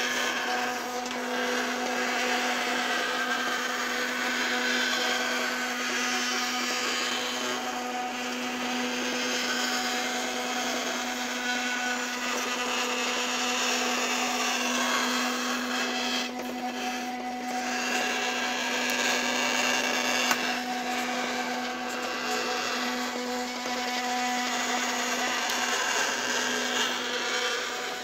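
Small electric motor and printed gear drive of a homemade PET-bottle filament maker running steadily, a constant hum over a whirr as it winds the strip.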